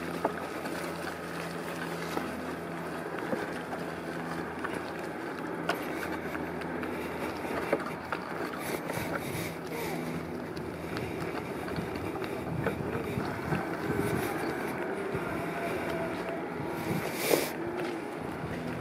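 Steady outdoor rumble with wind noise on the microphone, with scattered light clicks and one sharper knock near the end.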